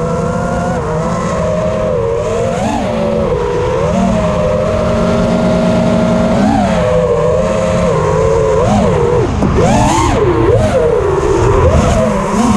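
FPV racing quadcopter's brushless motors whining, the pitch swooping up and down with each throttle change, with quicker, sharper swoops in the last few seconds.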